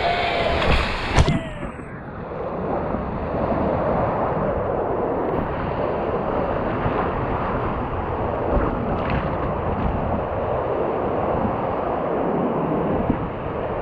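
Surf and whitewater rushing around a paddleboard riding a wave in, with wind on the microphone of a GoPro mounted on the board. A sharp knock about a second in.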